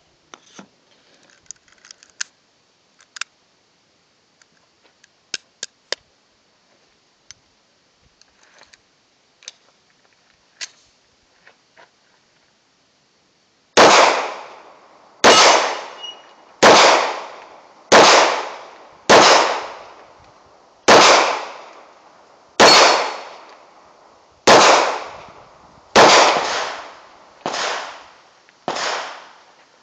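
A few faint clicks of cartridges being pressed into a pistol magazine. Then, about 14 seconds in, a Llama 1911-pattern pistol in 9mm Parabellum fires about eleven shots at a slow, steady pace, one every second and a half or so, each shot trailing off in echo.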